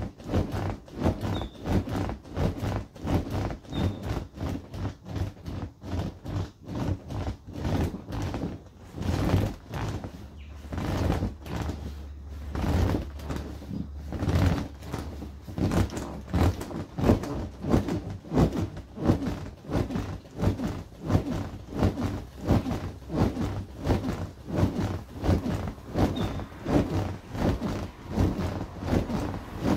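Inflatable vinyl ride-on toy being bounced on: a steady rhythm of thumps and vinyl rubbing, about two a second, that loosens for a few seconds in the middle.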